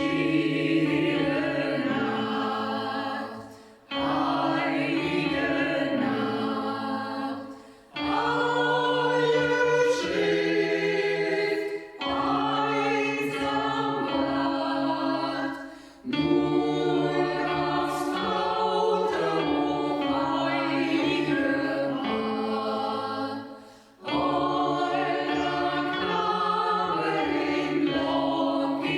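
Choir singing a slow Christmas song in phrases of about four seconds, each followed by a short breath.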